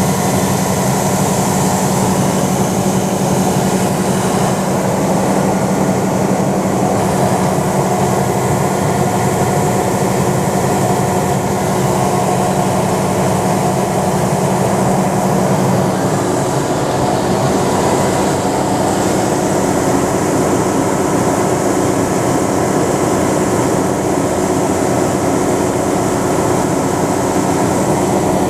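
John Deere 9500 combine running steadily with its diesel engine and harvesting machinery under way. A strong low hum in the sound drops away a little past halfway.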